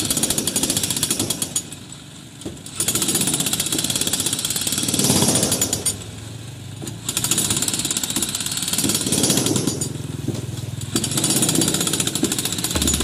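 Electric demolition hammer (breaker) pounding on a concrete bridge deck, breaking it up. It runs in about four bursts of a few seconds each, with short pauses between them.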